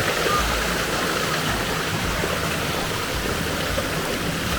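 Steady rush of water from a waterfall and stream, an even hiss with no breaks.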